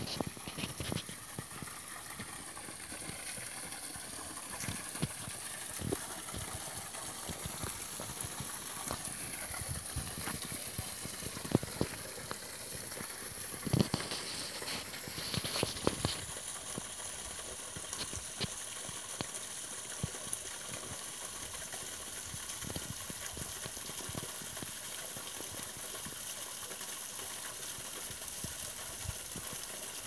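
Small woodland waterfall trickling and splashing steadily into a shallow stream pool, a constant hiss. Scattered light clicks and a few sharper knocks are heard over it, loudest around the middle.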